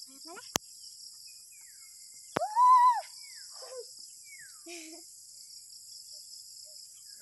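Steady high-pitched chorus of crickets and other insects, with one loud rising-and-falling call about two and a half seconds in and a few short chirps after it.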